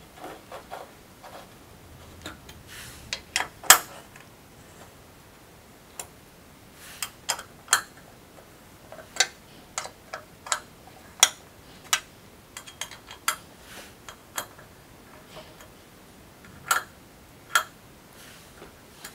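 Irregular sharp metallic clicks and taps of a hex key and M6 screws against the extruded metal profiles at the corner of a projection-screen frame as the corner screws are fitted and tightened by hand.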